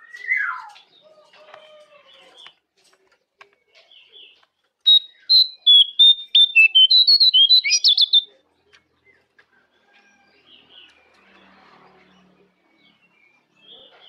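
A jongkangan songbird singing: a short falling whistle at the start, then a loud, rapid run of high chirping notes lasting about three seconds in the middle, with fainter scattered notes either side.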